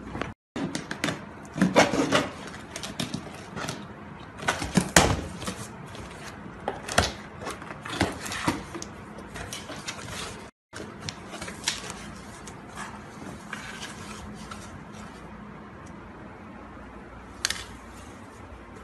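Belongings being rummaged through by hand: irregular knocks, clatter and rustling as tins, packets, clothes and a cardboard box are picked up and moved on a tiled floor.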